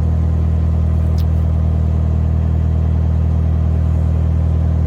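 Narrowboat's diesel engine running steadily under way, a constant low hum.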